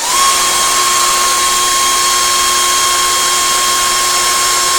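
Small electric motor spinning up, rising in pitch for a moment, then running on with a steady high whine, the sound of it driving a fidget spinner up to high speed.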